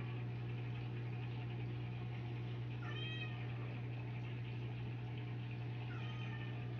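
Steady low hum of aquarium pumps and filters, with one short pitched call, rising then falling, about three seconds in.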